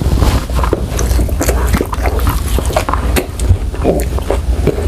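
A person biting into and chewing a piece of seared beef steak close to the microphone: irregular wet mouth clicks and smacks over a steady low rumble.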